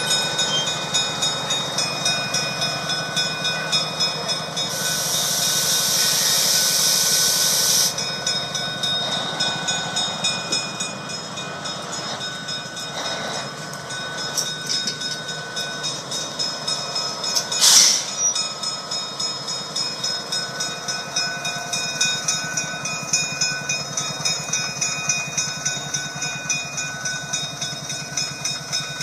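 The diesel prime movers of a GE 44-ton diesel-electric locomotive running with a steady pulsing beat as it moves slowly out of its shed. A loud hiss lasts about three seconds from about five seconds in, and a short sharp burst comes about 18 seconds in.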